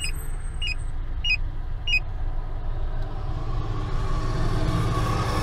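Steady low car engine and road rumble inside the cabin, with a turn-signal indicator ticking about one and a half times a second for the first two seconds, then stopping.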